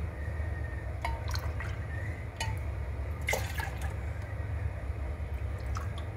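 Milk poured from a ceramic cup into a stainless steel saucepan, splashing and filling, with a few light clinks of the cup against the pot.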